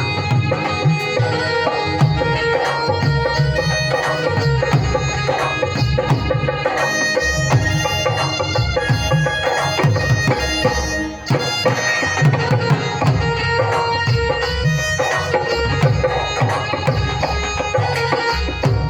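Dhol drum playing a fast, dense rhythm with melodic backing music; the drumming briefly drops out about eleven seconds in.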